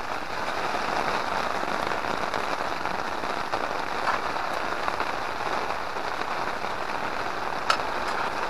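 Steady rain falling, a continuous patter with a few sharper drop hits, about four seconds in and again near the end.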